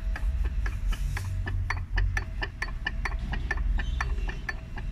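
Rapid, evenly spaced clicking, about four to five clicks a second, over a low rumble.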